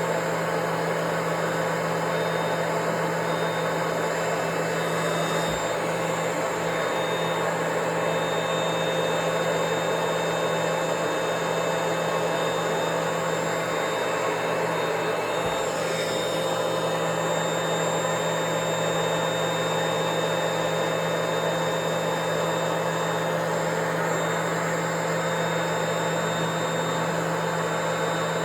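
Vacuum cleaner running steadily: a continuous motor hum with a whine and a rush of air, with a couple of faint knocks around six and sixteen seconds in.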